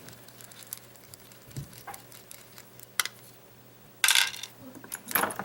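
Small metal lock parts and tools clicking and clattering during padlock disassembly, with a sharp click about three seconds in and a louder clatter of something knocked about four seconds in.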